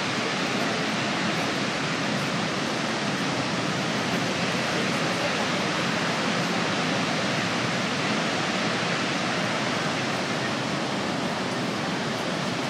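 Niagara's Horseshoe Falls: a steady, even rush of falling water.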